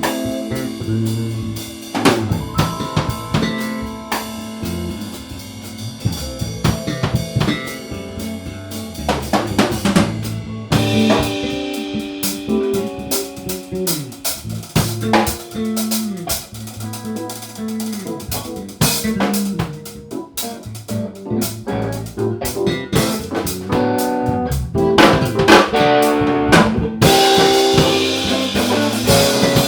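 Instrumental jam in A minor: a drum kit with snare and bass drum keeping a beat under bass and other pitched instruments. The playing grows louder and brighter near the end.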